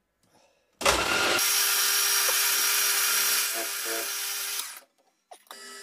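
Milling machine spindle with a drill chuck and centre drill starting up about a second in and running steadily with a hiss and a steady hum while centre drilling a tough steel part. It stops near the end, then runs again more quietly for a moment.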